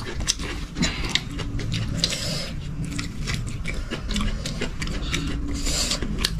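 Eating sounds at close range: chewing, with many irregular small clicks and crackles of food being bitten and handled.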